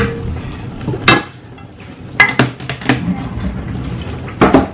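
Cookware clattering: a wooden spatula and pans knocking, with a few sharp knocks about a second in, a cluster around two to three seconds, and two more near the end.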